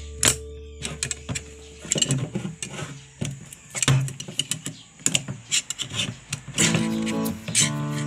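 Irregular sharp metallic clicks and taps, a steel rod and parts knocking against an automatic transmission clutch drum as it is assembled by hand, over background guitar music that fades down and comes back near the end.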